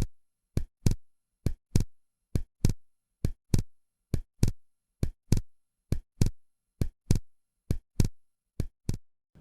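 Artificial heart sounds heard over the pulmonary artery: a steady rhythm of about one beat a second, each beat a pair of short thuds, the first heart sound and then the second, with the second heart sound split.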